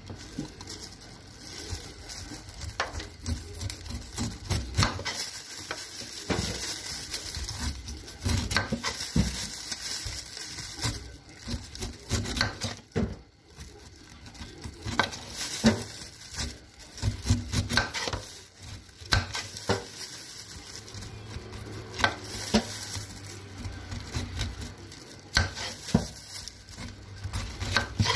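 Kitchen knife cutting the rind off a whole pineapple: a run of irregular cuts and scrapes, many of them short and sharp.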